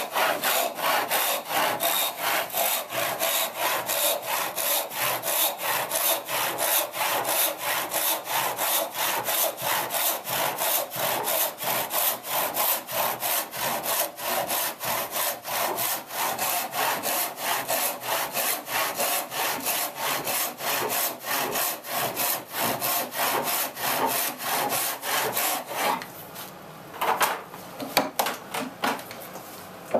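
Hand rip saw ripping a pine board lengthwise with steady back-and-forth strokes, about three a second. The sawing stops about four seconds before the end, followed by a few knocks.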